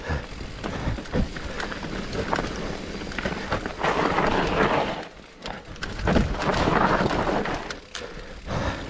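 Mountain bike rattling over a rough dirt trail on a descent: tyres rolling on dirt and stones, with many short clicks and knocks from the bike, under rushing wind on the camera microphone that swells twice.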